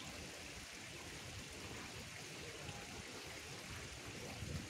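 Steady, quiet rushing background noise with no distinct event.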